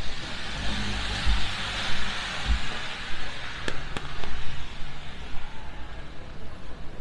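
A taxi driving past close by on a wet road: the tyre hiss swells and fades over a couple of seconds, with two low thuds. Two sharp clicks come a third of a second apart a little past the middle.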